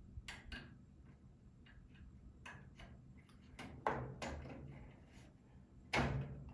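Scattered small clicks and taps of a plastic connector and parts being handled on a washing machine's control board, with louder knocks about four and six seconds in.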